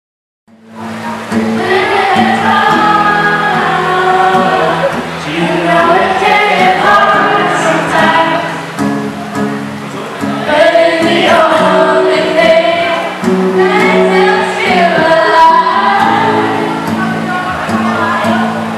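A group of voices singing a song together over steady held low notes, starting about half a second in.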